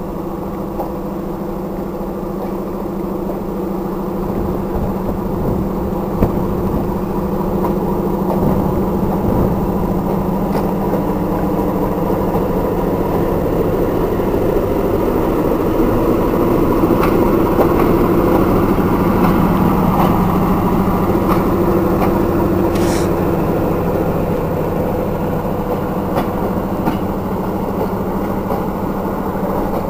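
SP42 diesel locomotive running as it slowly hauls a single passenger coach past, with a steady engine drone that grows louder toward the middle and then eases off. A few light clicks are heard along the way.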